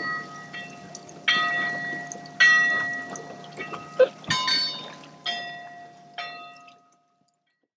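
Bell on a navigation buoy clanging unevenly as the buoy rocks on the water, about one ringing stroke a second, with a sharp knock about four seconds in. The ringing dies away near the end.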